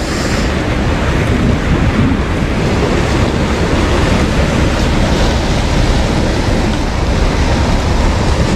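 Steady rush of wind on the microphone mixed with sea surf washing in.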